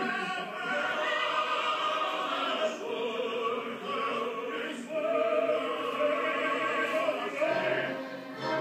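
Opera music: a voice holding long sung notes over an orchestral accompaniment.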